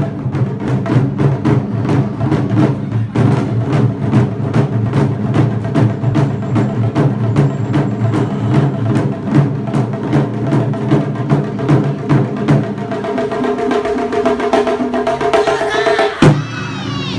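Festival music: a steady, fast beat of sharp percussion strikes, about three or four a second, over held low tones, with a single loud crack near the end.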